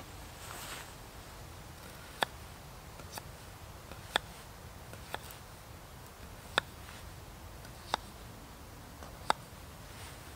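A knife cutting vegetables on a small wooden board, with seven sharp taps roughly one a second as the blade strikes the board.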